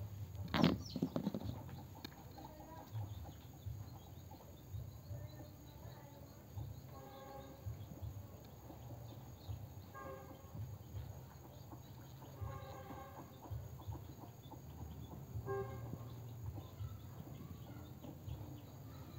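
Several short animal calls in brief clusters over a steady low rumble, with one louder sudden sound about half a second in.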